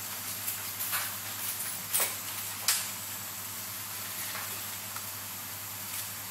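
Small, sharp, irregular clicks of steel watchmaker's tweezers and tools touching a Seiko 7S26B automatic movement during reassembly, the sharpest a little under three seconds in. Under them runs a steady hiss with a low hum.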